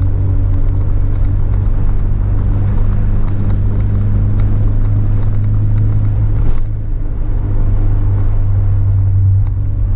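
Acura RSX's four-cylinder engine running with a steady low drone of car and road noise. A short swish comes about six and a half seconds in, and the sound drops slightly just after.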